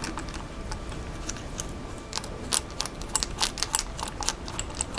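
Hex screwdriver turning small screws to fasten an RC car steering servo into its mount: a scatter of light, sharp clicks and ticks of metal on plastic, coming faster in the second half.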